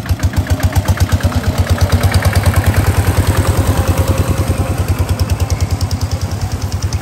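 A small engine running at low speed with an even beat of about ten pulses a second. It grows slightly louder toward the middle and eases off a little near the end.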